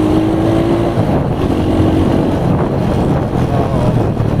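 Honda Grand single-cylinder four-stroke motorcycle engine, fitted in a Honda Win 100, running steadily while the bike is ridden, with wind noise on the microphone.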